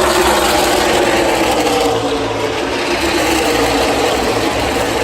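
NASCAR Xfinity stock cars' V8 engines running at racing speed, several at once in a steady loud din. Their pitch sinks slowly over the first two seconds, then holds.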